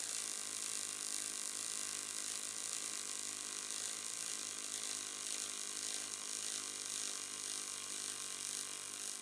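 MIG welding arc on aluminium sheet, running on the AC pulse (acArc puls) process: a steady electrical buzz with a hiss over it.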